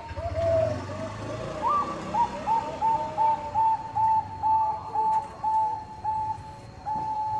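Zebra dove (perkutut bangkok strain) cooing: a quick run of short slurred coos, then a rising note and an even series of short coos about three a second, ending on a longer held coo.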